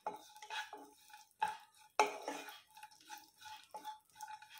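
Plastic slotted spatula stirring slivered almonds and cashews in ghee in a nonstick kadai: irregular scrapes and light knocks against the pan, the strongest about two seconds in.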